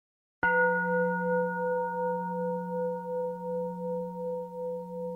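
A Buddhist bowl bell, like a singing bowl, struck once about half a second in after silence. It rings on with a low hum and several higher overtones that waver in loudness as it slowly fades.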